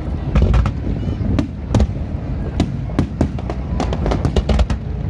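Aerial fireworks bursting: an irregular run of sharp bangs and crackles, several a second, over a steady low rumble.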